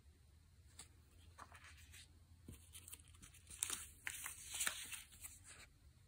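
Die-cut paper stickers rustling and crackling as they are picked up and shuffled through by hand on a tabletop: an irregular run of short crackles and rustles, busiest about halfway through.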